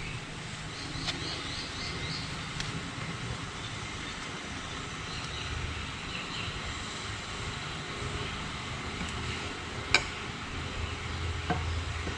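A steady low background drone with a few faint clicks from small hand tools working a piston circlip off, and one sharper click about ten seconds in.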